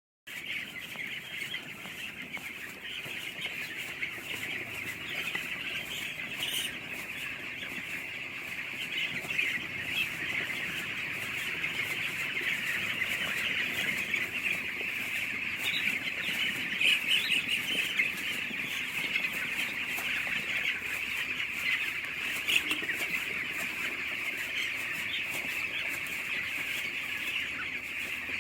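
A crowd of broiler chicks peeping continuously, many high chirps overlapping into a steady chorus.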